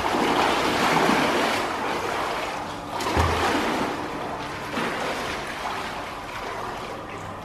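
Pool water splashing and sloshing as people play in it, a continuous wash of water noise that swells and ebbs.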